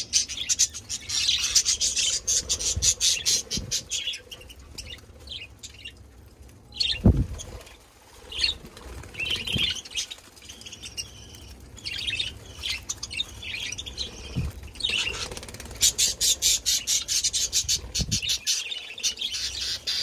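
Budgerigars chirping and chattering in fast runs of short, clicky notes, thickest at the start and over the last five seconds. A few low thumps come through, the loudest about seven seconds in.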